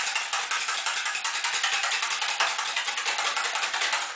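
Raw eggs being beaten by hand in a stainless-steel bowl: the utensil clatters against the bowl in a fast, steady, unbroken run of clicks.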